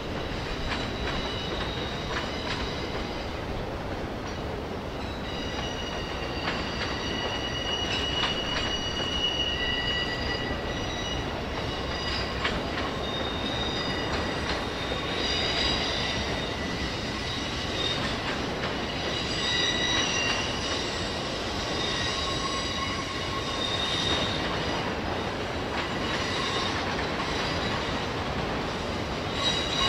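Freight train of autorack cars rolling past with a steady rumble of wheels on rail. High-pitched wheel squeal comes and goes from about five seconds in.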